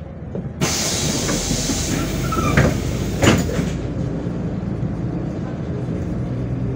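MAZ 105 city bus's pneumatic doors working: a sudden loud air hiss starting about half a second in, with two knocks around three seconds in. After that, a steady low rumble of the bus running.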